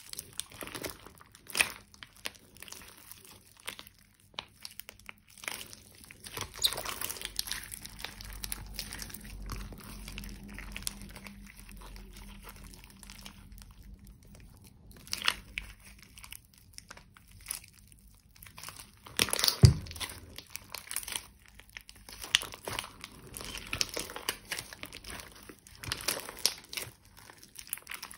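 Hands kneading, squeezing and stretching thick, sticky slime in a glass dish, making irregular crackling and squishing sounds as it folds and pulls apart. One sharp, loud pop comes a little past the middle.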